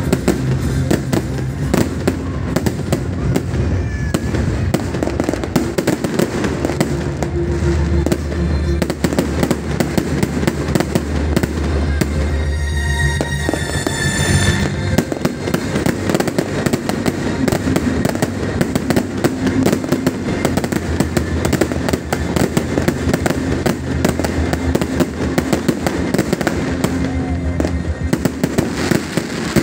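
Fireworks display: a continuous dense run of bangs and crackles from aerial shells bursting overhead, with a brief whistle about halfway through.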